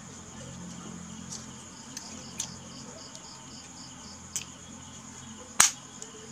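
Crickets chirping steadily at about three chirps a second. A brass airgun pellet resizer is handled over this, giving a few light clicks and one sharp, louder click about five and a half seconds in.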